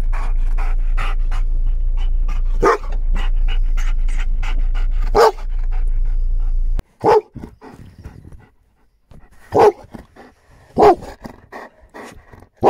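Dog barking in single barks a second or more apart, over a steady low hum and quick clicking. About seven seconds in the background drops away abruptly, leaving barks with quiet between them.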